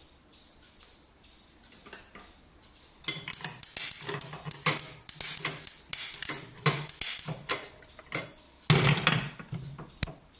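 Handheld gas lighter clicking again and again at a gas stove burner, then a loud metal clank as a stainless-steel pressure cooker is set down on the burner grate near the end.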